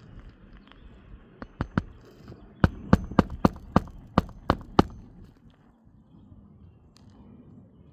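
About a dozen sharp strikes of nails being driven into asphalt roof shingles: three quick ones, a short pause, then a steady run of about three a second.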